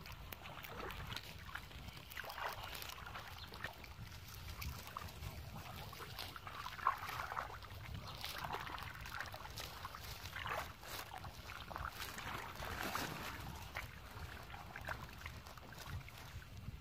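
Hands groping and sloshing through shallow muddy water, making irregular small splashes and water sounds.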